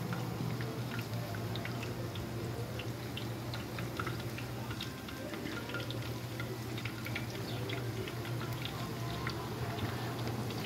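Tortillas deep-frying in hot oil in a wide steel pan: a steady sizzle with a constant crackle of small pops. A steady low hum runs underneath.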